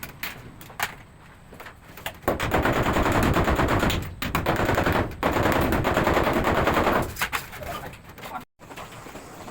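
A power hammer chipping into concrete, hammering rapidly in two bursts of about two seconds each, with scattered knocks before and after.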